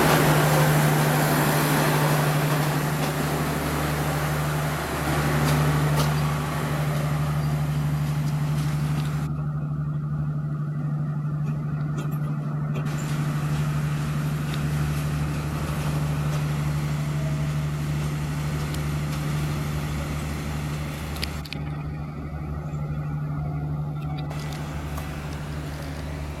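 Diesel-electric locomotive running with a steady low engine drone under a noisy rumble, slowly growing fainter.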